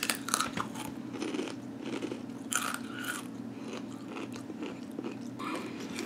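A person biting and chewing crunchy spicy corn chips, with a few irregular crunches spread through.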